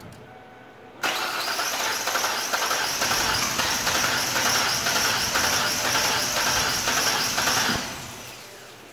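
A Ford van's engine started and running, with coolant spraying out of the engine bay, a dense hissing rush that begins suddenly about a second in and holds steady for about seven seconds before dying away as the engine is shut off. The spray comes from a worn-out water pump.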